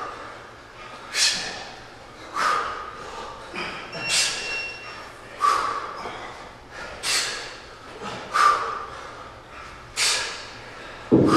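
Sharp, forceful breaths pushed out with each kettlebell rep, eight of them at a steady rhythm of about one every second and a half.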